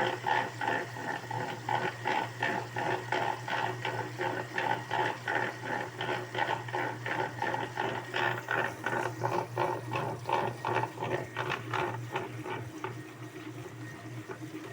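Washing machine running: water sloshing in a quick, even rhythm over a steady motor hum, with the sloshing fading near the end.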